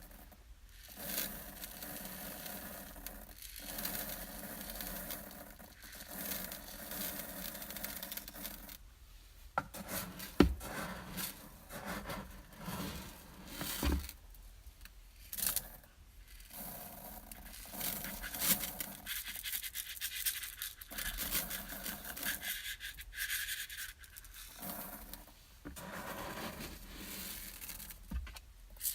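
Dry rice grains being moved about, rustling and scraping in irregular bouts with short pauses between them. There is a sharp knock about ten seconds in and a smaller one a few seconds later.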